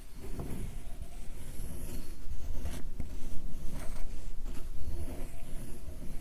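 Sumi ink stick being ground on a wet inkstone: a continuous gritty rubbing and scraping as the stick is pushed back and forth.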